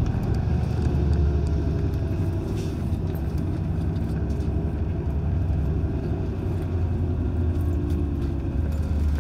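Route bus running downhill, heard from inside the passenger cabin: a steady low rumble of engine and road noise, with a faint whine that slides in pitch.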